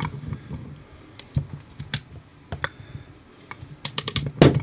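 Ratchet head of a TOLRET hand rivet nut tool being worked by hand: irregular sharp clicks, with a quick run of several clicks near the end.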